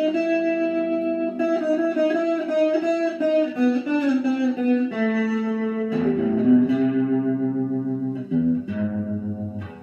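Electric guitar played solo: long sustained single notes moving down in pitch over the first five seconds, then lower notes picked in a quick pulsing pattern.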